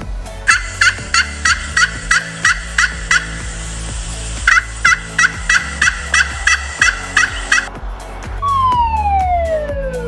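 Wild turkey calls: two runs of quick, evenly spaced calls, about three a second, with a short break between them. Near the end a long falling tone sounds.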